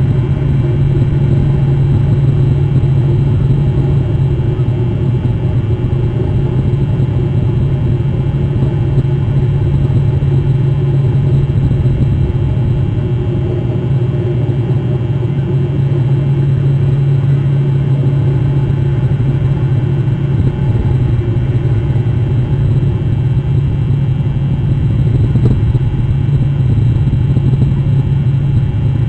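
Steady low rumble of a running engine, even in level and pitch throughout.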